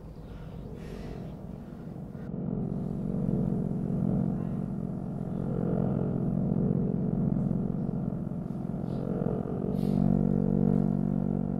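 Low, sustained synthesizer drone of a suspense film score, a few held low tones that swell louder about two seconds in and then hang steady.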